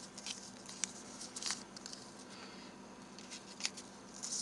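Paper tea-bag tags being handled and laid out on a quilted cloth: faint, scattered light rustles and small ticks, a little busier near the end.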